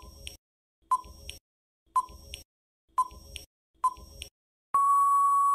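Countdown timer sound effect: five short beeps about a second apart, followed near the end by one longer steady beep signalling that time is up.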